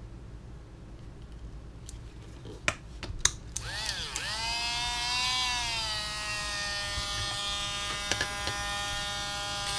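A few sharp clicks, then a small electric motor spins up with a whine that rises in pitch over about a second and then runs steadily at a high pitch, settling slightly lower about halfway through.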